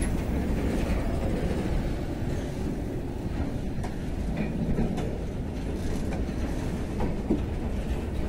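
Freight train of petroleum tank wagons rolling past close by: a steady low rumble of steel wheels on the rails, with a few faint clicks.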